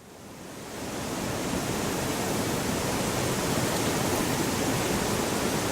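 Steady rushing hillside ambience, an even outdoor wash of noise with no distinct events, fading in from silence over about the first second.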